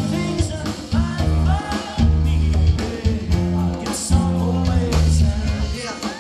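Live rock band playing: electric guitar and bass guitar with a male singer's voice over the top.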